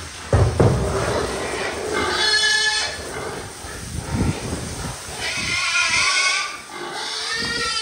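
Domestic pigs squealing three times in long, high calls, with low grunts in between, as cold water from a hose is sprayed over them in the pen.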